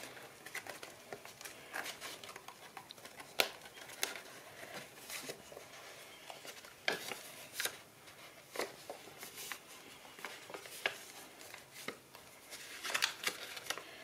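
Cardstock journal pages being turned and handled: scattered soft paper rustles and light taps, with a quicker run of rustling near the end.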